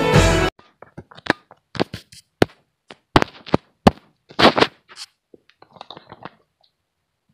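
String music cuts off half a second in, followed by a string of irregular knocks, taps and short rustles from a phone camera being handled and set in place, fading out about six seconds in.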